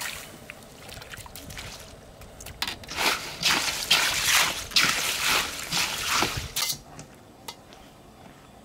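Water sloshing and splashing as a hand stirs sliced garlic in a steel bowl of ice water, loudest for a few seconds in the middle.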